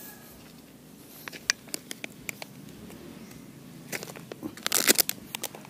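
Handling noise of a small plastic cup: scattered light clicks, then a cluster of louder crackling and scraping about four to five seconds in.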